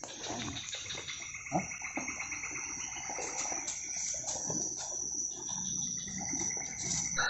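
Chorus of insects and frogs calling: a steady high trill with rapid pulsing, and scattered lower calls underneath.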